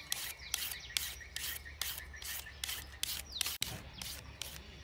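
Julienne peeler scraping down a raw carrot in quick repeated strokes, about three a second, shaving it into thin strips. The strokes grow fainter near the end.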